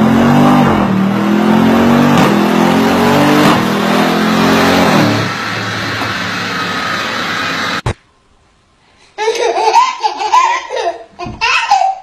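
Audi RS6 Avant's twin-turbo V8 and exhaust running hard on a chassis dyno, pulling up through the revs with short breaks about two and three and a half seconds in. It then settles to a quieter, steadier note and cuts off abruptly about eight seconds in. After a brief silence, a baby laughs in bursts.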